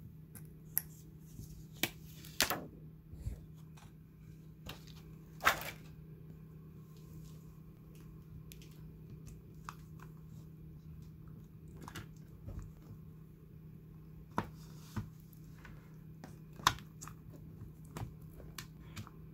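Small irregular clicks and crinkles of a replacement iPad Air 2 battery and its plastic film being handled and pressed into the tablet's metal frame, with two louder crackles about two and a half and five and a half seconds in. A faint steady hum runs underneath.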